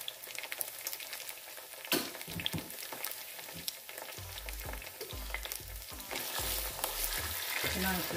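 Onions and tomato paste sizzling in hot oil in a pot while a wooden spoon stirs and scrapes through them. A sharp knock comes about two seconds in.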